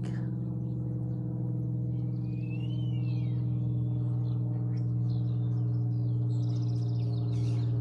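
A steady low hum with a stack of even overtones, unchanging throughout. Faint bird chirps sound over it: a short rising-and-falling whistle about two and a half seconds in, and quick trills near the end.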